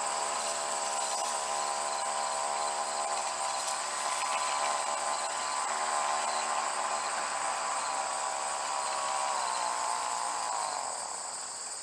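Snapper commercial weed eater's small engine running steadily, then slowing in pitch and dying away about ten seconds in. Crickets chirp steadily throughout.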